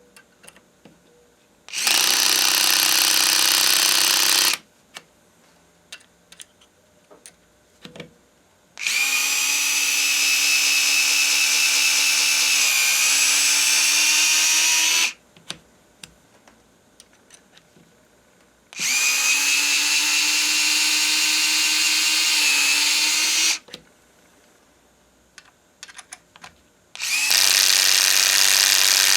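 Small cordless electric screwdriver running in four separate runs of about two to six seconds each, a steady motor whine as it drives screws into plastic test pieces. Small clicks and handling knocks fall in the gaps between runs.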